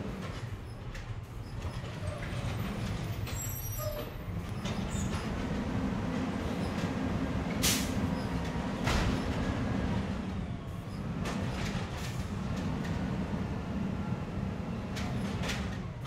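Garbage truck engine running with a steady low rumble, with scattered clicks and clanks and one brief sharp sound about halfway through.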